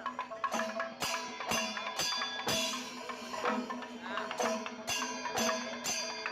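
Music with percussion: a steady beat of sharp strikes about twice a second under melodic lines and a held low tone.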